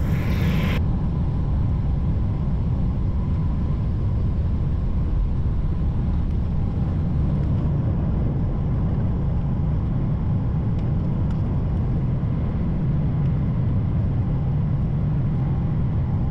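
Steady low rumble of a jet airliner heard from inside the passenger cabin as it takes off.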